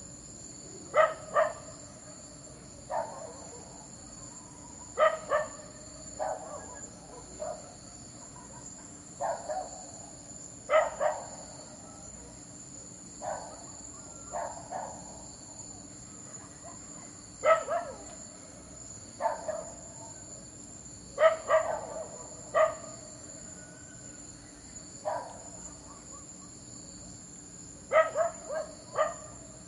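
A dog barking repeatedly, in single barks and short runs of two or three, over a steady high chirring of crickets.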